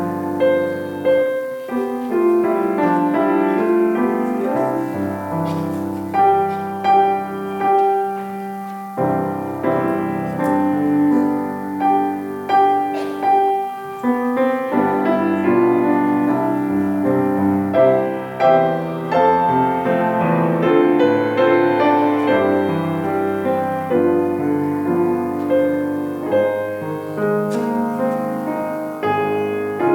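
Piano playing an instrumental offertory piece, with flowing chords and a melody.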